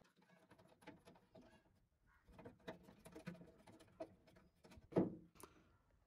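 Faint, scattered metallic clicks and taps of a 10 mm spanner loosening the two bolts that hold a car's outer door handle inside the door, with one louder knock about five seconds in.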